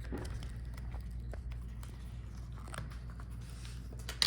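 Faint small clicks and scrapes of hands working on a laptop's internals, around the display cable connector on the motherboard. One sharp click comes near the end, all over a steady low hum.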